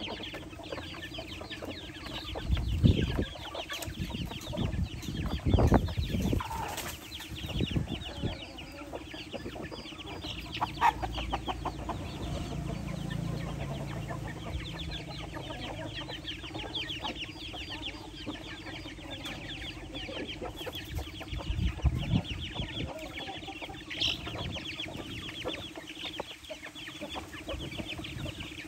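A flock of chickens clucking while young chicks keep up a rapid, continuous peeping as they feed at a metal trough. A few low thumps come about 3 and 6 seconds in and again near 22 seconds.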